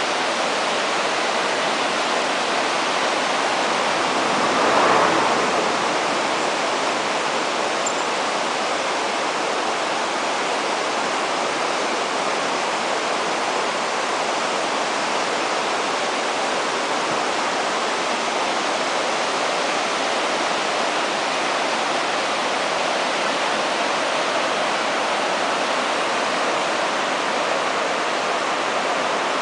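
Flowing river roaring: a steady, even rush of water, with a brief swell about five seconds in.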